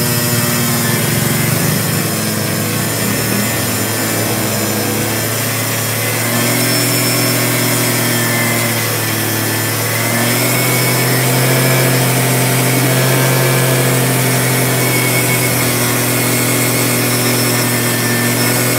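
Scooter engine held at high, steady revs during a stationary burnout, the rear tire spinning and scrubbing on the pavement; the engine speed climbs a little about halfway through.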